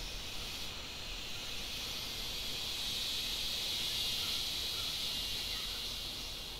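Forest insects, such as cicadas or crickets, droning in a steady high-pitched chorus that swells in the middle and eases toward the end, with a few faint short chirps underneath.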